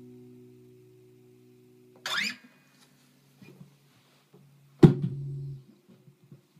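Acoustic guitar's final chord ringing out and fading away. About two seconds in there is a brief rising scrape, and near five seconds a sharp knock as the guitar is handled and put down, with a short low ring from the strings after it.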